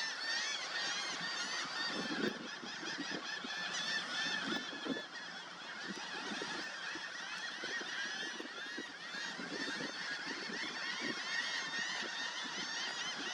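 A large flock of waterfowl calling together: a dense, continuous chorus of many overlapping calls from many birds at once.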